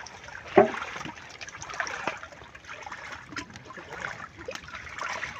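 Shallow muddy water trickling and lapping, dotted with many small splashes, and one louder sharp sound about half a second in.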